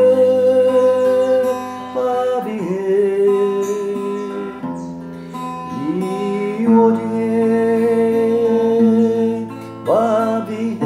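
A voice chanting long, held vowel syllables over guitar music, sliding from one sustained note to the next every few seconds.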